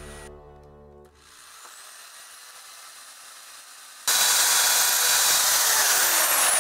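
Background music fading out in the first second. About four seconds in, a corded electric drill starts suddenly and bores a pilot hole into a pine 2x4, its pitch falling near the end.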